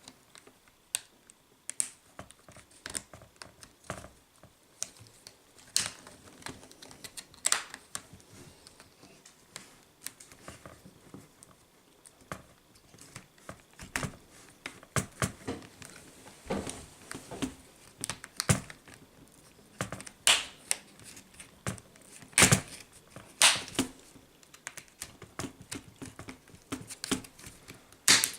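Plastic pry tool worked around a laptop's screen bezel, the bezel's plastic clips popping loose in irregular clicks and snaps, a few much louder than the rest.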